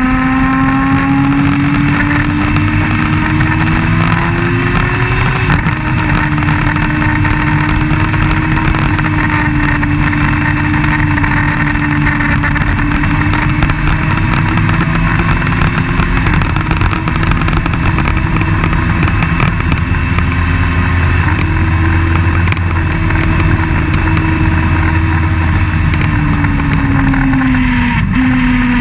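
Open-wheel race car's engine heard on board at racing speed, over a steady rush of wind and road noise. The engine note climbs slowly, drops at a gear change about five seconds in, and falls away near the end as the car comes off the power.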